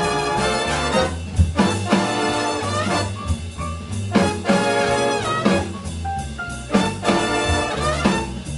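Swing big band playing live: the horn section plays loud ensemble phrases with short breaks between them, over bass and drums.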